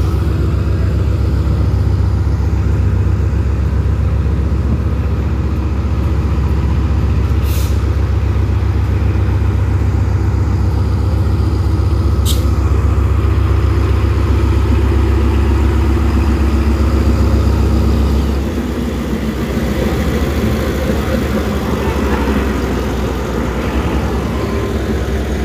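Diesel locomotive pulling a train past at low speed, its engine a loud, steady deep rumble. Two brief high hisses come about a third and halfway through. The rumble drops off about three-quarters of the way in.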